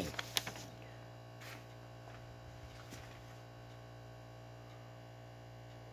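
Steady low electrical mains hum, with a few faint clicks in the first half-second and a couple more later on.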